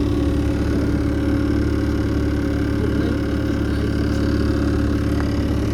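Boat engine running steadily at a constant speed, a low, even hum.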